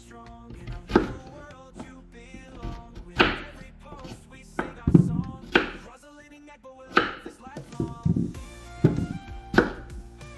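A kitchen knife chopping peeled yam into chunks on a wooden chopping board: about eight separate cuts, each ending in a knock on the board, spaced irregularly about a second apart. Background music plays under them.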